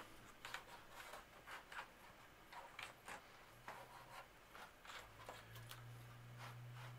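Moistened cotton swab scrubbing inside a keyboard's space-bar well: faint, irregular scratching and light ticks of the swab against the plastic.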